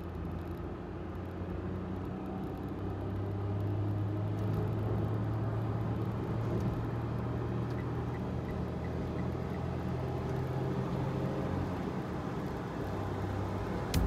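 A Subaru Sambar kei vehicle's engine and road noise, heard from inside the cab as it accelerates. The engine drone grows louder over the first few seconds, holds steady, then eases near the end.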